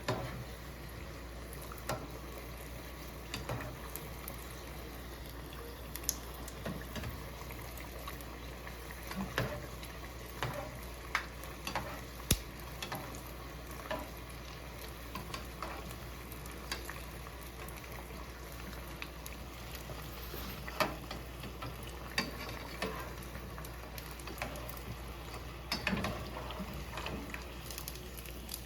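Hot cooking liquid bubbling and sizzling in a pan, a steady hiss with scattered sharp pops and clicks.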